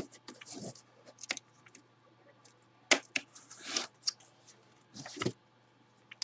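Hands handling packaging and items on a table: short rustles and scattered sharp clicks, the loudest click about three seconds in, over a faint steady hum.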